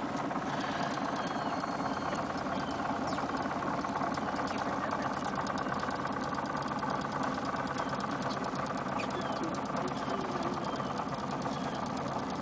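Boat engine running steadily at low speed, a constant even hum.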